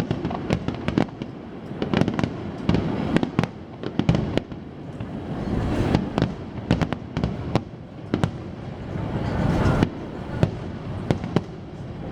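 Fireworks display: many sharp bangs and crackles in quick succession over a continuous low rumble of booming bursts.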